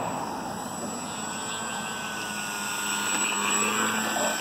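Electric RC Sport Cub model airplane's motor and propeller running on the ground for takeoff, a steady whine that gets louder about three seconds in as the throttle opens.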